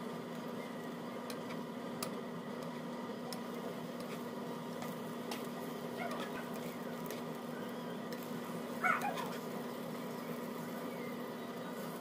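Cooking egg in a nonstick frying pan, with a plastic spatula lightly clicking and scraping against the pan as the seaweed egg roll is turned and rolled, over a steady hum with a few steady tones. A short squeak falling in pitch comes about nine seconds in.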